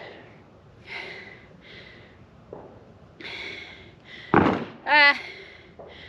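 A woman breathing hard after a sprint-and-shoot rifle drill, with a breath in or out about every second. About halfway through there is a loud thump, followed straight away by a short vocal sound.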